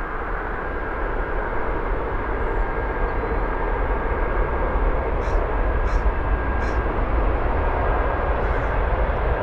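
Boeing 737-700 jet engines (CFM56-7B) running at departure power: a steady broad rush of jet noise with a thin, high, steady whine in it, growing slightly louder. Three short, faint, high chirps about half a second apart sound just past the middle.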